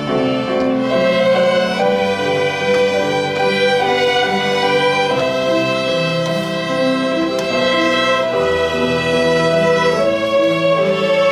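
Slow instrumental music: a violin melody in long held notes over a string accompaniment.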